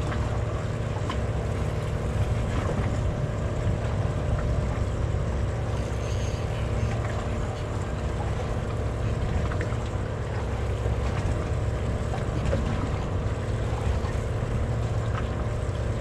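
Fishing boat's engine running steadily at low revs, a constant low drone with a fixed hum, over light wind and water noise.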